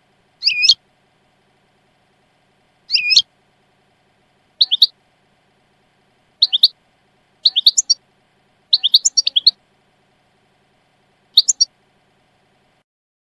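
European goldfinch calling in the Levantine 'Shami' song style: short, sharp high chirps and brief twittering phrases at irregular gaps a second or more apart, coming thickest in the middle.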